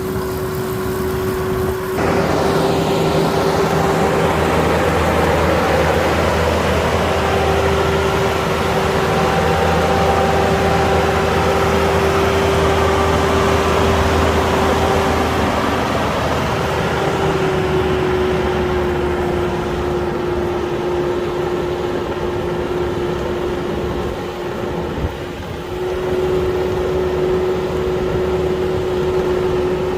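Kukje KC5130 combine harvester running: a steady engine drone with a constant whine over it. The whine settles slightly lower in pitch about halfway through, and the sound dips briefly a few seconds before the end.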